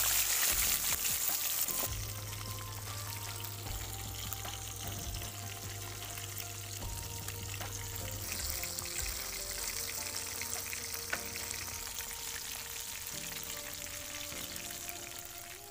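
Pieces of bhola fish shallow-frying in hot mustard oil in a wok, a steady sizzle and crackle.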